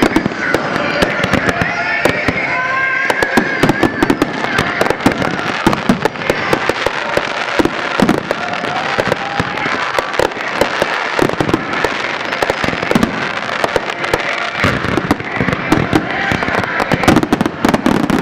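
Aerial fireworks display: shells bursting in quick succession with bangs and crackling, denser and louder near the end.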